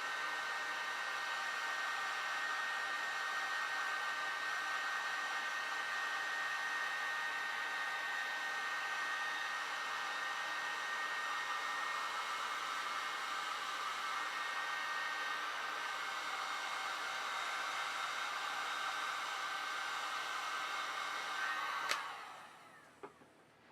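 Electric heat gun blowing steadily with a whirring hiss, as used to shrink heat-shrink tubing on battery-cable lugs. It is switched off with a click about 22 seconds in.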